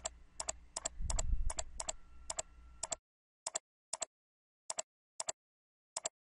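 Computer mouse clicking, a dozen or so double clicks (press and release) about every half second, placing the points of a polygon hotspot on an image map. A brief low rumble about a second in.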